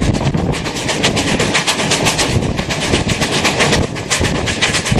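The Fairy Queen steam locomotive (1855) running at speed, its exhaust chuffing in rapid, even beats over the clatter of the coach wheels on the rails.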